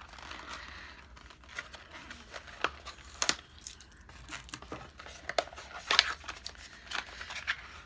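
Packaging crinkling and rustling in the hands, with irregular sharp clicks and crackles as a pack of sheet masks is handled and checked; a few louder crackles about three and six seconds in.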